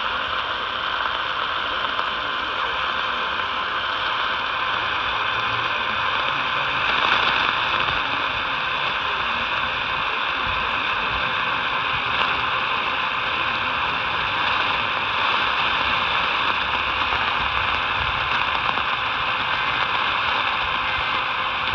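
Radio static: a steady hiss of receiver noise with faint hum-like tones underneath, unchanging throughout.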